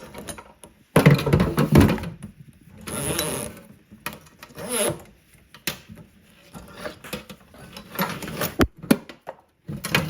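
Metal faucet body and its hoses scraping, clattering and knocking as they are worked loose and pulled out through the sink's mounting hole, with a loud scrape about a second in and sharp clicks later.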